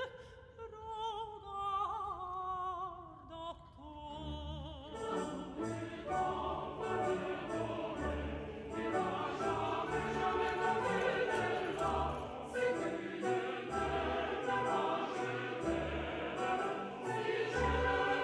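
Operatic background music: a solo voice singing with wide vibrato, joined about five seconds in by a fuller orchestral accompaniment with a steady low beat.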